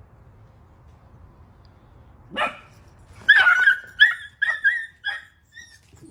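A dog barking in a quick run of high-pitched yips, starting a little over two seconds in, the calls coming roughly three a second and fading out near the end.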